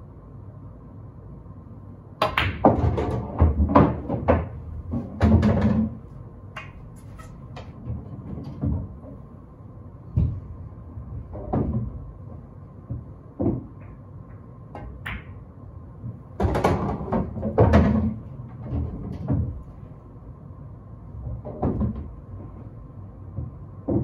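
Pool being played on a Diamond table: the cue tip striking the cue ball, balls clacking together and knocking into the pockets. The knocks come in two dense runs, about two seconds in and about sixteen seconds in, with single knocks scattered between and after.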